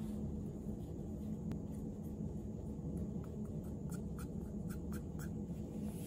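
Steady low machine hum, with a run of about eight light ticks and taps over two seconds in the second half as powder is tipped and tapped from a paper into a glass beaker.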